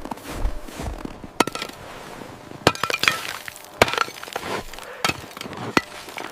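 A handful of sharp, irregularly spaced clinks and knocks, some with a brief ring after them.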